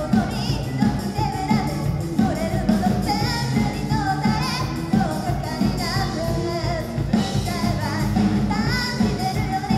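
A live rock band playing: a woman singing over electric guitars, bass, drums and keyboard.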